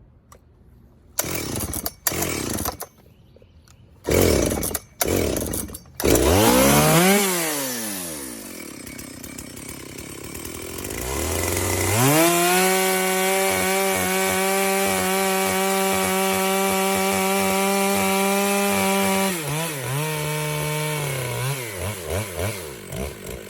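64 cc chainsaw firing in several short bursts before it catches, revving and falling back to idle, then held at a steady high speed for about seven seconds while cutting Bradford pear with a freshly hand-sharpened chain left to self-feed. Near the end it drops back with a few uneven blips toward idle.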